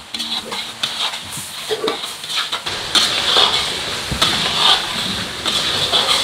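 Long metal spatula stirring and scraping a chilli spice paste frying in a large steel wok: a steady sizzle with repeated metal-on-metal scrapes, getting louder about three seconds in.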